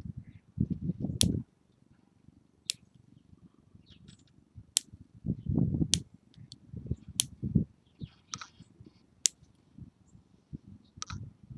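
Metal lever nail clipper snipping fingernails: a sharp click at each cut, about seven in all, one every second or two. Low irregular rumbling noise runs between the snips.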